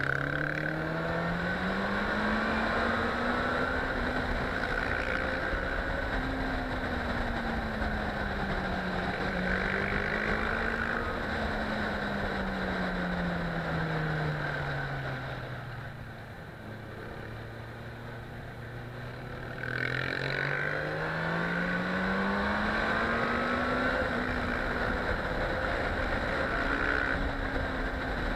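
Suzuki GSX-R 750 inline-four engine heard from the rider's seat with wind noise, revs rising as it accelerates out of bends and falling as it shifts and slows into them. Around the middle it drops to a low, steady, quieter note for about four seconds through a hairpin, then pulls up again.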